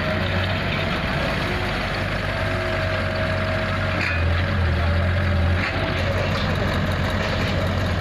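Diesel engines of a tracked excavator and a farm tractor running steadily, with the low engine drone growing louder for a little under two seconds about halfway through.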